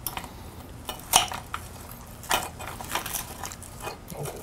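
Metal knife and fork clinking and scraping against a plate and platter as smoked ribs and chicken are cut and served. There are scattered sharp clinks, the loudest about a second in and again past two seconds.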